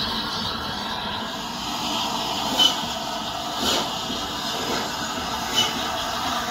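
LNER A3 Flying Scotsman steam locomotive hissing steadily as steam escapes, with three brief louder spurts.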